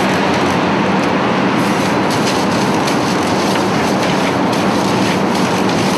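Steady, loud rushing noise with a low hum underneath.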